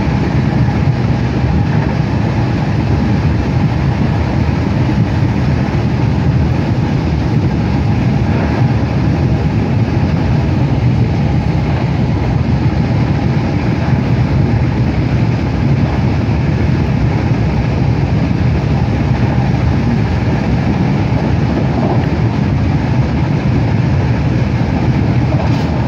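Steady running noise heard inside a Eurobahn regional train travelling at speed, heaviest in the low end, with no breaks or separate knocks.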